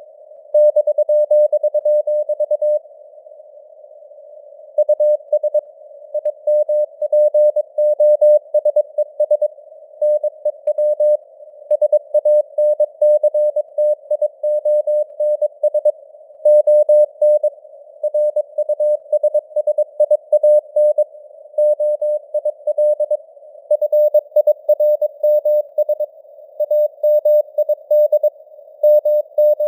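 Morse code sent at 22 words per minute: a steady tone of about 600 Hz keyed on and off in dots and dashes, over a narrow band of simulated radio receiver hiss. There is a longer pause between letters and words about three seconds in.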